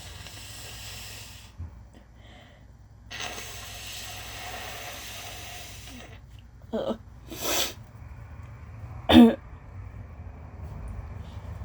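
A person with allergy congestion blowing her nose into a tissue twice, a short blow and then a longer one of about three seconds, followed by a few short explosive bursts from the nose and throat, the loudest about nine seconds in.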